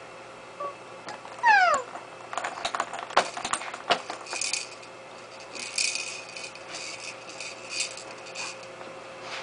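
A baby's short, high squeal falling sharply in pitch, followed by the plastic toys of an exersaucer clacking in a quick string of clicks, then rattling and jingling in several bursts as she bats at them.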